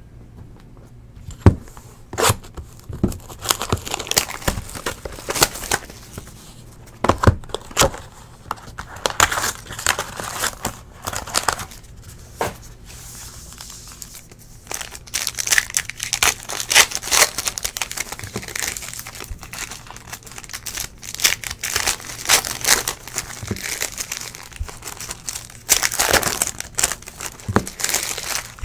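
Plastic wrapping on trading-card packs and boxes being torn open and crumpled by hand: an irregular run of crinkles and rustles, with a few sharp knocks from the boxes and packs set down on the table, the loudest about a second and a half in.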